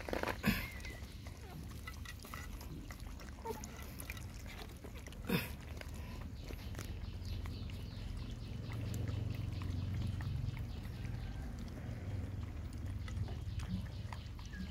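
A litter of puppies lapping milk from a plate and a mother dog eating soup from a bowl: many small, quick wet laps and slurps, with two sharper knocks, one just after the start and one about five seconds in.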